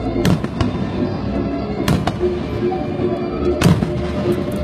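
Fireworks exploding: several sharp bangs, the loudest about three and a half seconds in, over music playing.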